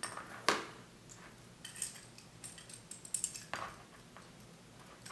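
Small sharp clicks and light clinks from a fidget spinner's plastic and metal parts being handled and fitted together, a handful of them at irregular gaps.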